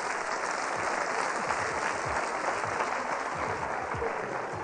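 Studio audience applauding, a steady clapping from a large crowd.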